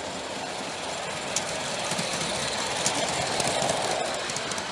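A G-scale model steam locomotive and its freight cars rolling past on the track. It is a steady running clatter that grows louder as the cars pass close, with scattered sharp clicks of wheels over the rails.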